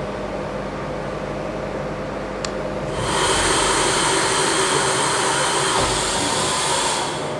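Miyano ANX-42SYY CNC turning centre running at the end of a machining cycle: a steady machine hum, then about three seconds in a loud, even rushing hiss starts abruptly and lasts about four seconds before easing off.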